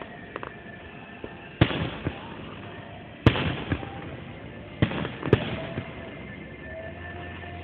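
Aerial fireworks shells bursting: four sharp bangs, the last two about half a second apart, each trailing off in a short echoing rumble.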